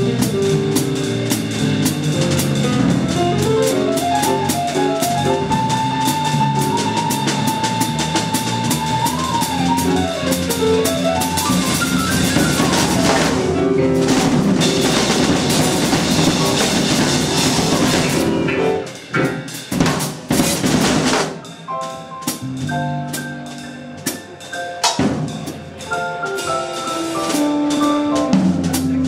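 Live instrumental music from a trio of drum kit, electric guitar and keyboard, with the drums busy throughout. A few seconds in, a melody line climbs in steps, holds a high note for several seconds and steps back down. Past the middle the band breaks into short stop-start hits with gaps, then plays on.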